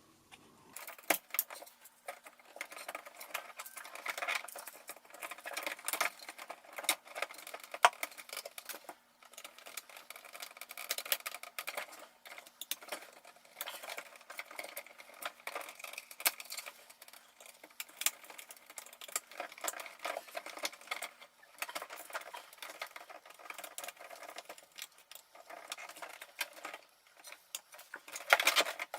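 Irregular small clicks, taps and rattles of hands working on a socket and its wiring: cables, connectors and screws being handled. A faint steady hum sits under it until about two thirds of the way through.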